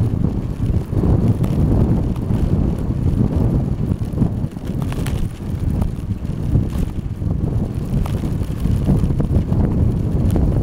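Wind rushing over the microphone of a camera on a moving bicycle, with the bike's ride noise on the asphalt path beneath it and a few light clicks.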